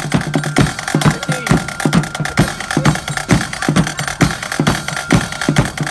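A marching band's drum section playing a steady marching beat on bass drum and snare drums.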